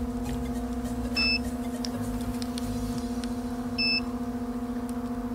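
Steady electrical hum with a short, high two-tone electronic beep repeating about every two and a half seconds, heard twice.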